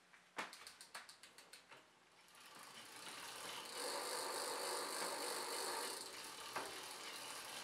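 Bicycle rear freehub ticking in a quick run of clicks that fade out. Then the drivetrain spins up as a pedal is turned by hand: chain, cassette and rear wheel with its disc rotor running in a steady whir from about three seconds in.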